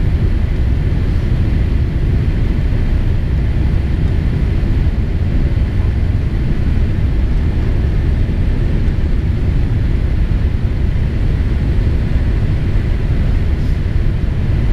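Cabin noise of a Boeing 787-8 on descent, heard at a window seat beside the wing: a steady, low rumble of airflow and its GE GEnx engines, with no change in pitch or level.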